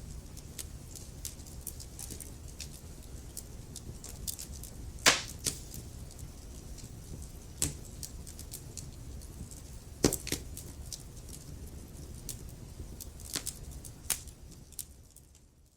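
Burning logs crackling: a steady stream of small crackles with a few louder, sharper pops, over a low, even rumble of the fire. The sound dips away briefly at the very end.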